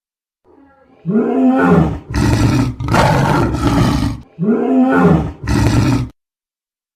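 Dinosaur roar sound effect: a deep call that rises and falls in pitch, then harsher rasping roars. The sequence plays twice, from about a second in until near the end.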